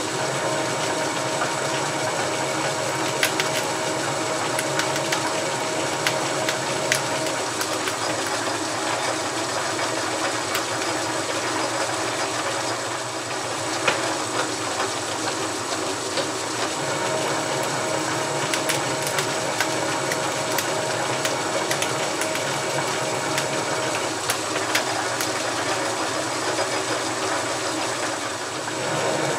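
South Bend 11 metal lathe running, its spindle turning a steel chuck back plate while a boring bar single-point cuts the internal spindle thread. A steady whine drops out for a while in the middle and returns, with scattered light ticks throughout.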